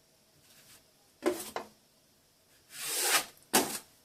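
Three short strokes of a hand tool rubbing across a plaster join in an internal corner, neatening it, about a second in, near three seconds and just after.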